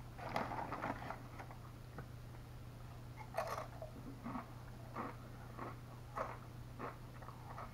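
Doritos tortilla chips being bitten and chewed close to the mouth: a crackly bag-and-chip rustle in the first second, a sharp crunching bite about three and a half seconds in, then a steady run of chewing crunches a little under two a second, over a steady low hum.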